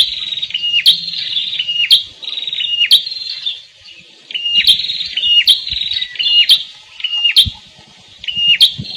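A wild prenjak kepala merah singing. It repeats a short phrase about once a second: a fast buzzy trill followed by a sharp, clicking note. The song breaks off twice, once a little before the halfway point and once near the end.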